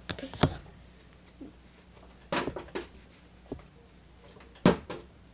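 Plastic water bottle being flipped and landing, making several short knocks and thuds; the loudest about four and a half seconds in.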